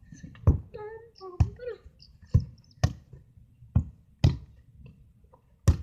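A football thudding close to the microphone, seven heavy thuds in all, two pairs of them about half a second apart. A child's voice is heard briefly in the first two seconds.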